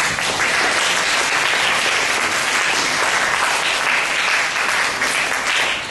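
Audience applauding: dense, steady clapping that breaks out at once and tails off near the end.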